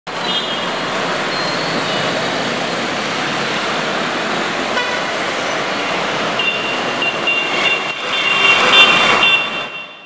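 Steady city street traffic noise with vehicle horns honking now and then. The horns crowd together and grow louder over the last few seconds, then everything fades out quickly.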